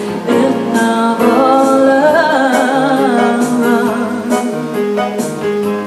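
A woman singing live into a microphone, with vibrato on her held notes, over piano accompaniment.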